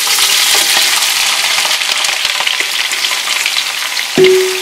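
Sliced onions frying in about a cup of hot cooking oil in a pot, a loud, steady sizzle just after they go in. About four seconds in, a single clank rings briefly.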